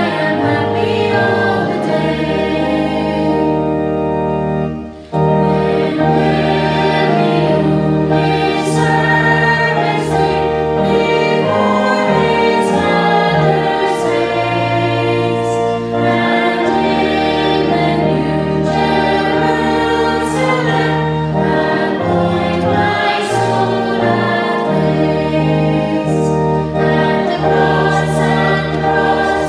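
Two women singing a Christian song together, with a sustained instrumental accompaniment underneath. The music breaks off briefly about five seconds in.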